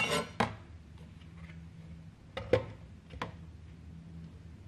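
Kitchenware handled on a countertop: a short clatter at the start, then a few separate sharp knocks, the loudest about two and a half seconds in, over a faint low steady hum.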